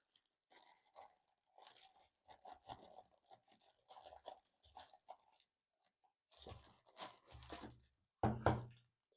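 Cardboard and plastic packaging being handled, in short, intermittent rustles and crinkles, with a few duller knocks near the end.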